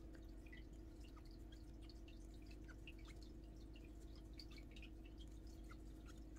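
Near silence: a steady low hum under faint, irregular tiny ticks from a crochet hook working cotton yarn.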